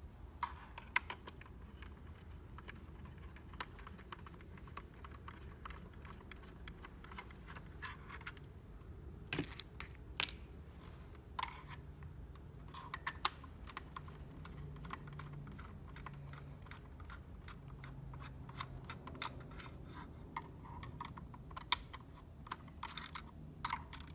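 Irregular small clicks and scrapes of a screwdriver and pick tool prying at the plastic housing and clips of a Porsche Boxster instrument cluster, with a few sharper snaps.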